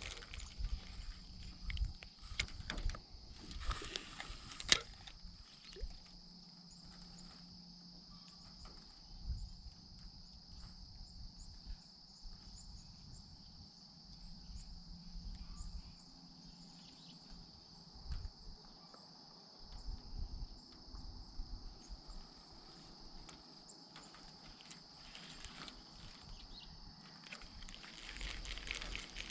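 Insects buzzing steadily, with scattered knocks and clicks from handling gear in a small boat; a sharp click comes about five seconds in.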